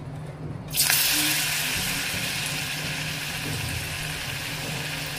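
Hot oil in a steel wok starts sizzling suddenly about a second in as a piece of jackfruit-and-chana-dal dhoka (lentil cake) goes in to fry. The sizzle eases a little but keeps going steadily.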